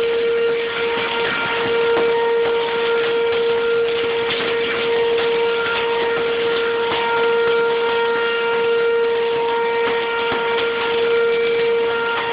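Outdoor tornado warning siren holding one steady tone that swells and fades every few seconds, over a steady hiss of storm rain and hail.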